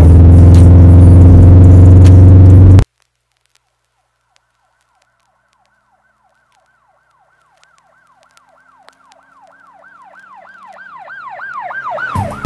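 Loud music cuts off abruptly. After a few seconds of silence, a siren in fast yelp mode fades in, wailing about six times a second, and grows steadily louder until it cuts off near the end.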